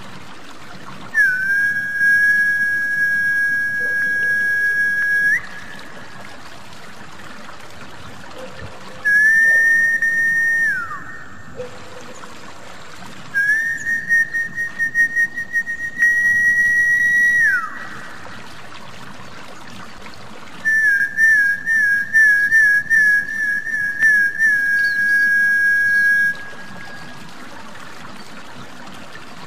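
Snakehead-fish lure whistle: four long, steady high whistles, some opening with a quick fluttering warble and two ending in a falling glide, over a constant trickle of water. The whistle is a call meant to draw snakehead up to the surface.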